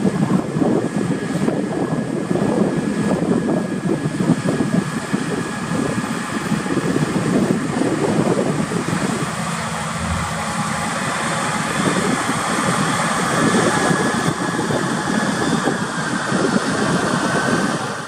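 Massey Ferguson 7720 tractor's diesel engine working under load while pulling a reversible plough through the soil, a steady engine drone with a thin high whine above it. Wind buffets the microphone, adding an uneven low rumble.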